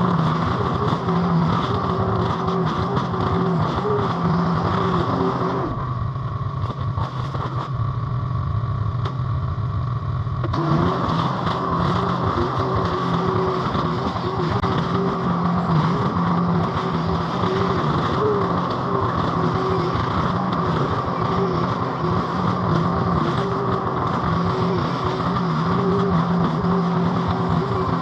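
Mini skid steer's engine running steadily at high throttle. From about six to ten seconds in the sound turns duller and somewhat quieter, then returns.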